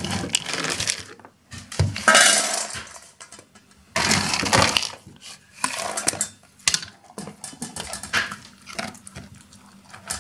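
Dry dog kibble rattling as a plastic scoop digs into a bin of it and pours it into a stainless steel bowl, in several loud bursts. Then a dog eating from the metal bowl: kibble crunching and clinking against the steel in many short clicks.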